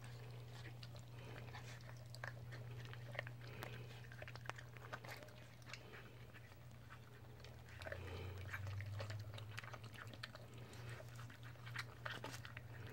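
Two young dogs crunching and chewing dry kibble from a shared bowl: a continuous run of small crisp crunches and clicks, over a steady low hum.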